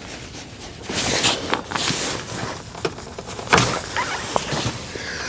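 Hands working plastic coolant hose quick-connect fittings and hoses in an engine bay: scattered clicks, scrapes and rustles, with a sharp click about three and a half seconds in.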